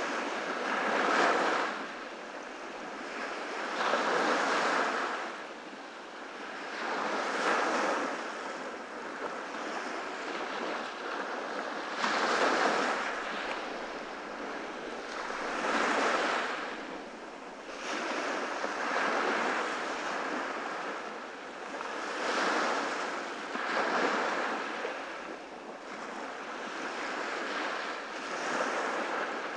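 Ocean surf breaking on a beach, each wave swelling and washing out again about every three to four seconds.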